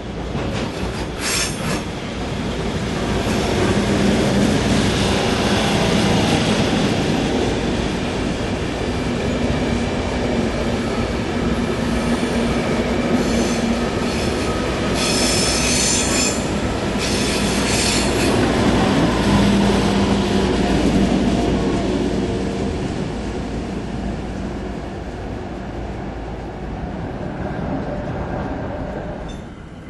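ÖBB class 4020 electric multiple unit running past on the near track, its wheels clattering over the rail. A high wheel squeal comes in the middle as the carriages go by.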